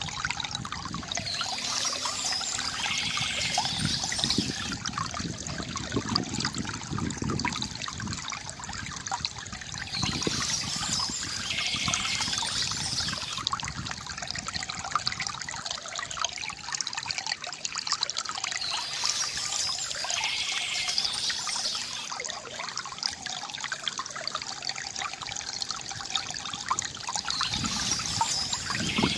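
Water trickling and gurgling steadily from a bamboo fountain, with a brighter stretch, likely birds chirping, coming back about every nine seconds.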